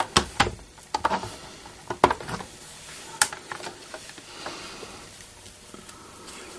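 Light clicks and taps of small craft supplies being picked up and handled on a work table, seven or so sharp ones in the first three seconds or so, then only faint handling.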